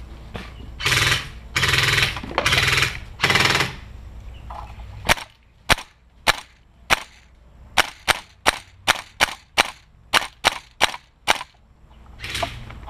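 Airsoft gun firing single shots in quick succession, about eighteen sharp cracks over six seconds. They follow four short rushing noises in the first few seconds.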